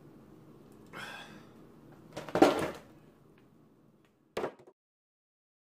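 A loud thump and clatter of a plastic milk jug and a cardboard cereal box being set down hard on a table, then a short knock about four seconds in before the sound cuts off abruptly.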